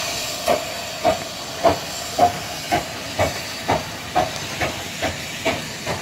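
15-inch-gauge steam locomotive pulling away: steady exhaust chuffs about two a second, quickening slightly as it gathers speed, over a constant hiss of steam.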